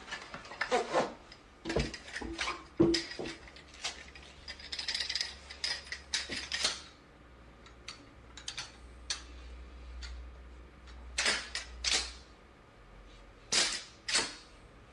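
A series of sharp, irregular clicks and snaps, bunched near the start and again twice near the end, with a short hiss a few seconds in.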